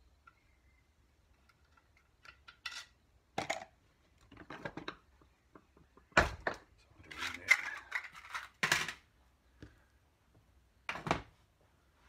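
Irregular metallic clinks and clatters of a screwdriver and small steel screws from the primary chaincase cover being handled and set down on the workbench, loudest in the middle.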